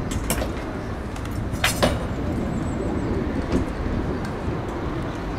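Steady hum of street traffic, with a few sharp clicks, the loudest about two seconds in.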